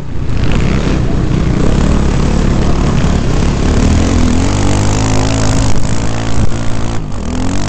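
Offroad motorcycle engine under hard throttle, heard from a helmet camera, with a loud rushing noise over it. The revs climb, dip briefly near the end and climb again.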